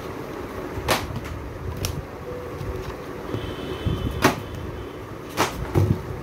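Children's picture books, paperback and hardback, being shuffled and lifted in a cardboard box: covers slap and knock against each other and the box about five times, the loudest a little after four seconds. A steady low hum runs underneath.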